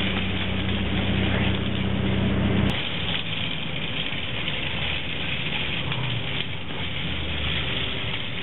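Street traffic: a steady engine hum that cuts off abruptly about three seconds in, followed by an even, rough noise.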